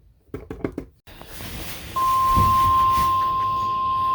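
Weather radio receiver with poor reception. A brief fragment of the announcer's voice is cut off by loud hissing static about a second in. About two seconds in, a steady single tone just above 1 kHz starts and holds through the static: the weather radio's 1050 Hz warning alarm tone that precedes an alert.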